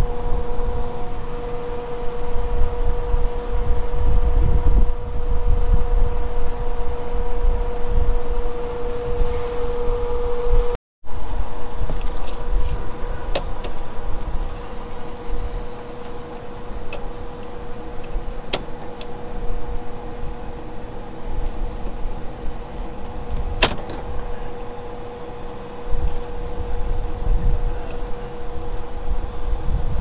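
Rooftop air-conditioning equipment running with a steady hum over a low rumble, with a few sharp clicks later on.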